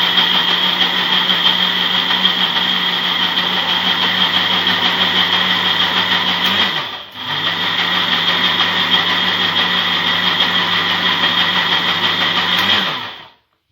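Electric mixer beating eggs and sugar, its motor running at a steady pitch. It winds down and stops about seven seconds in, starts again straight away, and switches off shortly before the end.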